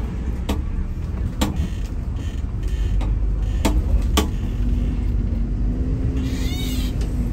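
A bus running on the road: a steady low engine rumble, with a few sharp knocks in the first half and a steady hum from about halfway. A brief high warbling sound comes near the end.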